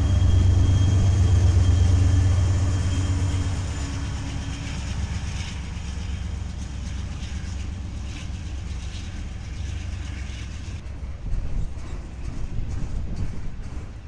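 Freight train rolling past close by: the steady rumble and rattle of freight cars on the rails. A low engine drone is loudest for the first few seconds, and a few louder clunks come near the end.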